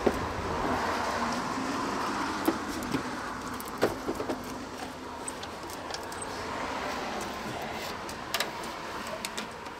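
Scattered sharp clicks and light knocks from hand work on a car engine's parts under the hood, a few seconds apart, over a steady background noise.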